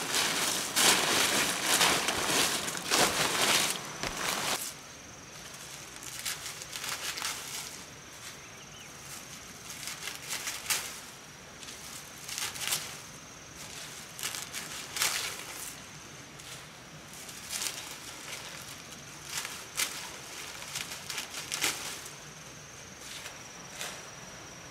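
Dry palm leaves rustling loudly as they are gathered up by hand for the first four seconds or so, then fainter, scattered rustles every few seconds as palm fronds are worked into a thatched roof.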